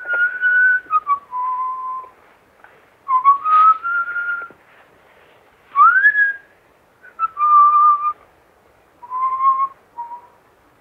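A person whistling a slow tune in short phrases separated by pauses. Held notes are joined by sliding glides, with one rising swoop about six seconds in.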